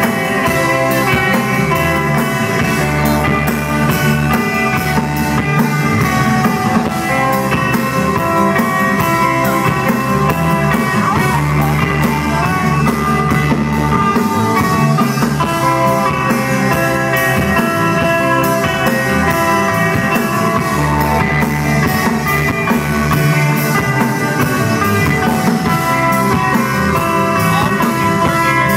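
A psychedelic rock band playing live and loud: electric guitars, bass guitar and drum kit in a long, droning jam with held guitar notes, recorded from within the club crowd.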